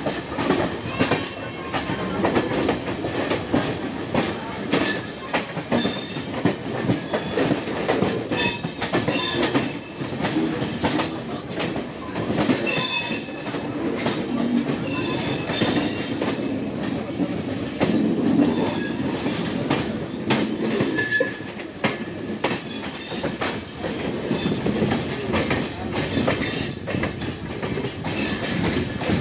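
Indian Railways express train running: a steady rumble with wheels clattering over rail joints, and short high metallic wheel squeals now and then.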